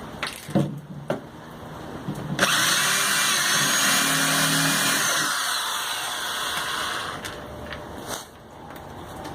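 A few knocks, then an electric drill runs for about five seconds from about two seconds in, drilling through the metal patch and wheelbarrow tub to line up the rivet holes, and winds down.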